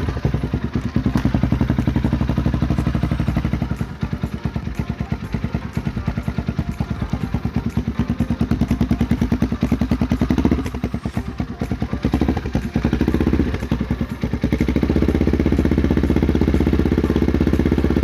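Motorcycle engine with its exhaust silencer removed from the stock muffler, running at warm-up with a steady pulsing exhaust beat. It grows louder and fuller over the last few seconds.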